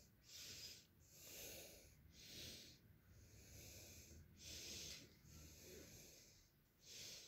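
Faint, soft breathing close to the microphone: a steady run of breath sounds, about one a second.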